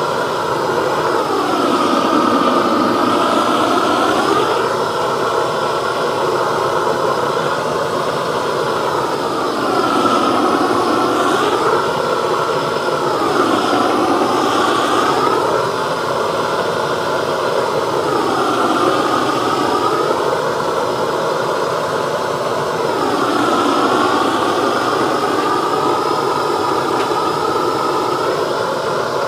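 A long-wand blowtorch flame rushing steadily as it scorches a chainsaw-carved wooden pumpkin to seal the wood and burn off fuzz. The rush dips and rises in tone every four to five seconds.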